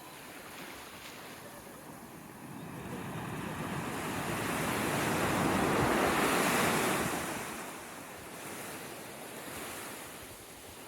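Ocean surf: a wave builds into a rushing wash that is loudest about six seconds in, then recedes, with some wind on the microphone.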